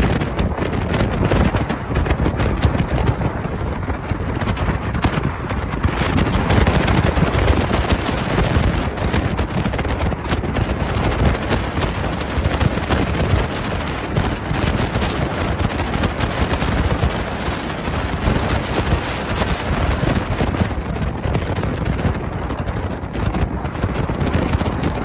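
Wind buffeting the microphone: a loud, steady rushing noise that swells and eases.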